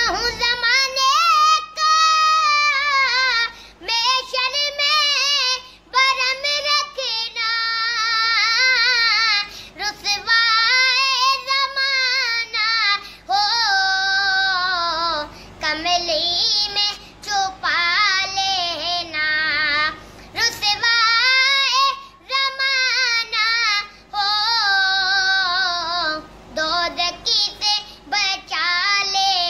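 A single high voice singing a devotional Islamic naat unaccompanied, in long wavering, ornamented phrases broken by short pauses for breath.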